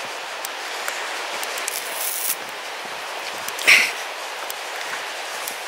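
Steady rush of the East Lyn River running over a rocky bed, a constant hiss, with a few light footsteps or scuffs on the dirt path and one louder brief scuff a little past halfway.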